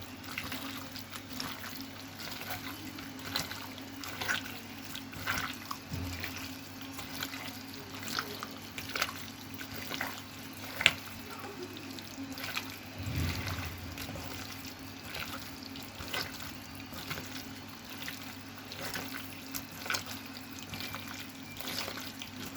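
Wet squelching and dripping as hands mix raw beef with spice pastes, in short irregular splats, over a faint steady low hum.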